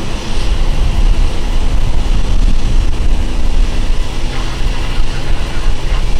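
Norfolk Southern diesel freight locomotive approaching a grade crossing, its engine giving a steady low rumble, with wind buffeting the microphone.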